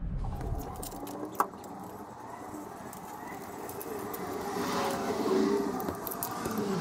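A single metal clink, then light handling noise from a steel seat bracket and its wiring, with a passing car swelling up and fading around five seconds in.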